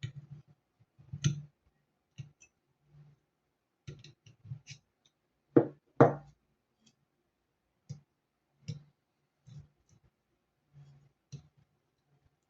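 Scattered clicks and light knocks of hard objects being handled, with two louder knocks close together about halfway through.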